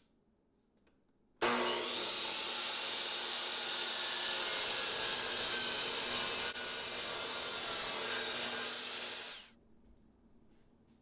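DeWalt compound miter saw switched on about a second and a half in, cutting an angle through a thick laminated plywood blank. It runs steadily for about eight seconds, then winds down.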